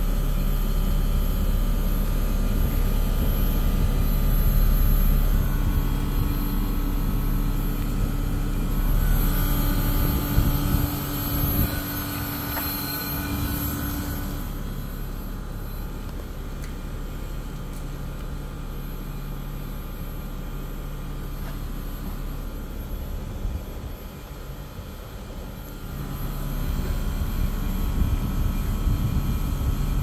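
The two condenser fans of a Cooper & Hunter mini split outdoor unit running steadily, a hum with a rush of moving air, now working on a newly replaced fan control board. It gets quieter for a while partway through and louder again near the end.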